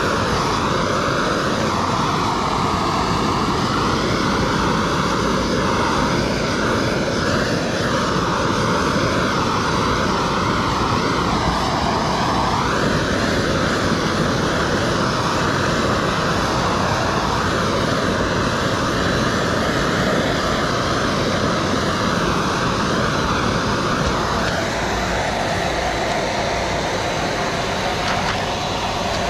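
Hose-fed gas torch burning with a steady, loud roar, its tone wavering slowly as the flame is swept over window tint film to heat-shrink it to the windshield's curve.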